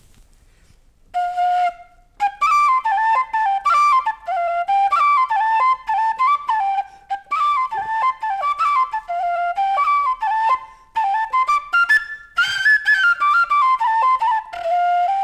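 Improvised circular flute made from the hollow tubular push rim of a wheelchair wheel, drilled with finger holes, playing a quick melody of many short notes. It starts about a second in with one short note and ends on a held note.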